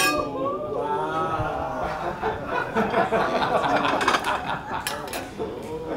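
Several people talking over one another and chuckling, with a few short sharp clicks.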